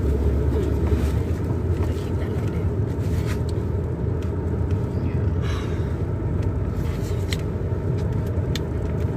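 Steady low rumble of a car cabin on the move, with scattered small clicks and rustles over it.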